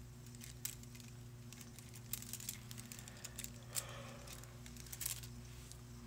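Faint scattered light clicks and taps from working acrylic onto nail swatch tips and handling the tools, over a steady low hum.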